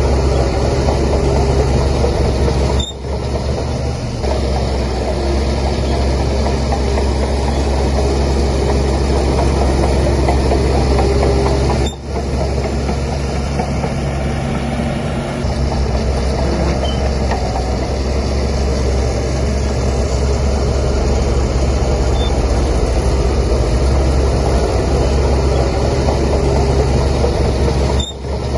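Shantui DH17C3 bulldozer's diesel engine running steadily with a deep low rumble, the sound briefly dropping away about 3 and 12 seconds in.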